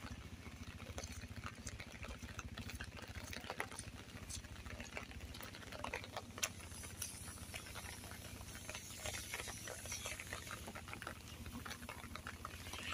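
Rain falling on a wet street and path: a steady hiss with many small irregular drop clicks over a low rumble.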